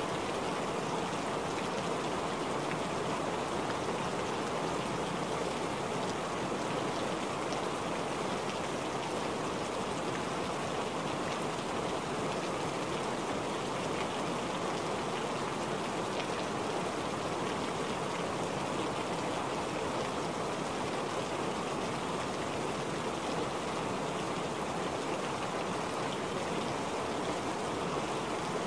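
Steady rain, a dense even hiss of drops splashing without letup.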